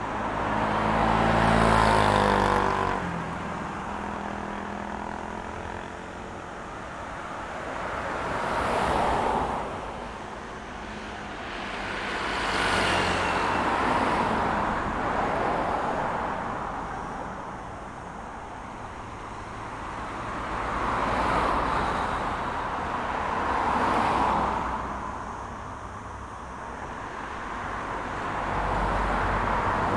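Road traffic: cars and other vehicles passing one after another, about six passes, each swelling and fading with tyre and engine noise. The first and loudest pass, about two seconds in, carries a deep engine drone.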